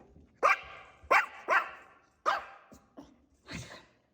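Maltipoo puppies barking: about five short, sharp barks with gaps between them, the loudest about a second in.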